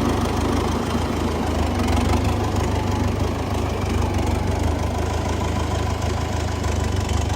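Sonalika RX 60 tractor's diesel engine idling steadily, a deep, even running sound.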